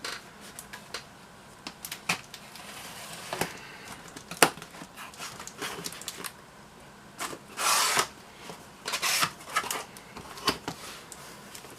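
Cardboard shipping box being opened and its packing handled: scattered clicks and taps with scraping and rustling, a sharp knock about four seconds in and a longer burst of rustling about eight seconds in.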